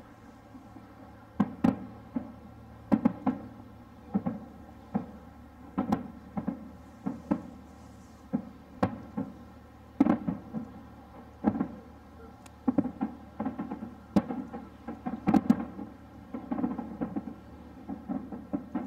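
Distant aerial firework shells bursting one after another, beginning about a second and a half in. Each sharp bang is followed by a low rolling boom, and the bangs come at irregular intervals, sometimes several in quick succession.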